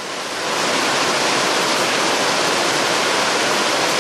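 Heavy rain pouring down, a loud dense steady hiss that swells slightly about half a second in.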